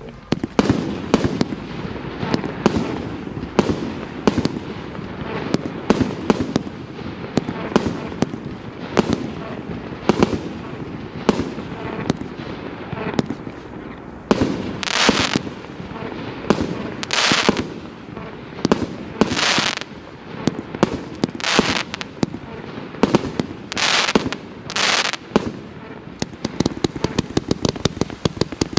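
A 160-shot mixed-calibre fireworks cake (Favorit Pyro Group FP-B366) firing in a rapid run of launch thumps and bursts. In the second half, longer hissing bursts come about every two seconds, and a fast volley of pops follows near the end.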